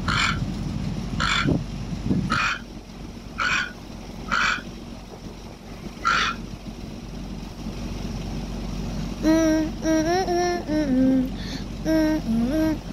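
Toucan croaking calls played back through a device's speaker: six short croaks, about a second apart at first, then a gap. A high voice with bending pitch comes in near the end.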